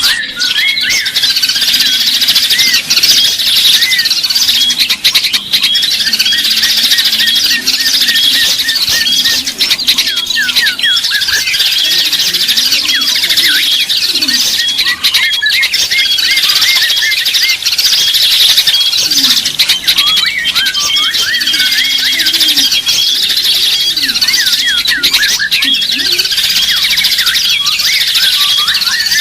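A dense chorus of small songbirds chirping and twittering, many short high calls overlapping without a break.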